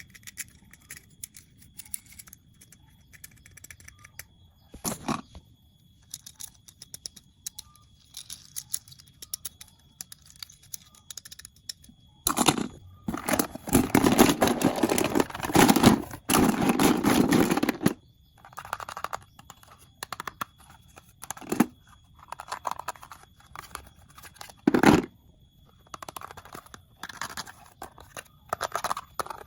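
Toy packaging being unboxed by hand: scattered rustles and small taps, a long stretch of tearing and crinkling about halfway through, and a few sharp knocks.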